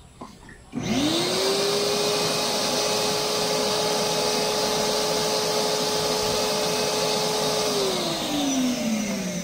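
Vacuum cleaner switched on about a second in, its motor whine climbing quickly to a steady pitch over a loud rush of air through the hose. It is switched off near the end and winds down with falling pitch.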